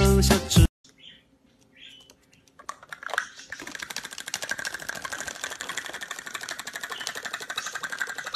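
Music cuts off abruptly under a second in. After a brief near silence, a rapid, steady clicking rattle sets in about three seconds in and keeps going.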